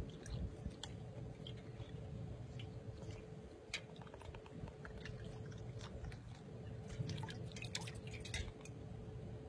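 A dog blowing bubbles into a stainless steel bowl of water with its nose and pawing at it: irregular small splashes, drips and clicks of water and paw against the metal bowl, over a faint steady hum.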